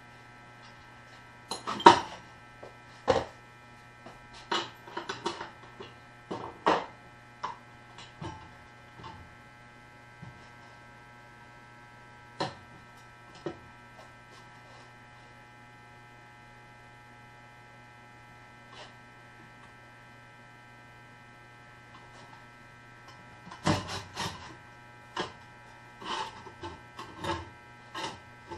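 Scattered clanks and knocks of a steel exhaust-pipe cone, wrenches and vise parts being handled on a metal-cutting bandsaw's table as it is set up for an angled cut, over a steady electrical hum. The knocks come in clusters near the start and again near the end, with a quiet stretch in the middle.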